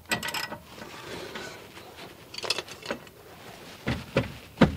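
Scattered clicks and metal knocks of a socket wrench working on the rear brake caliper bracket bolts, with a few heavier knocks near the end.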